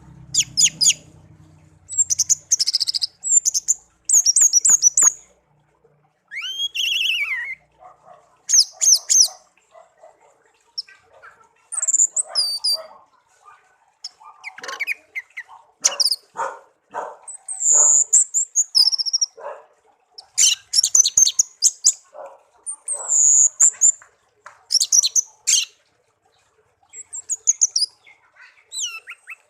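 A pet songbird singing in short, varied phrases of high chirps, trills and sliding whistles, with brief pauses between them and a run of lower, quicker notes in the middle.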